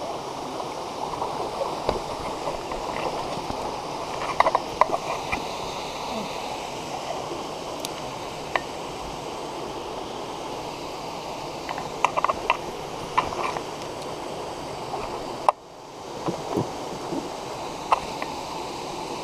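Shallow stream running steadily over rocks, with short splashes and knocks from a hooked trout being played at the surface and landed in a net. The splashes come in clusters about four seconds in and again about twelve seconds in, with a single sharp knock near fifteen seconds.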